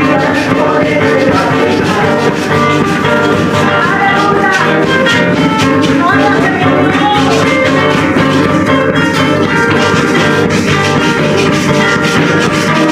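Band music from a Christian song, guitar prominent over a steady beat, with no clear words sung.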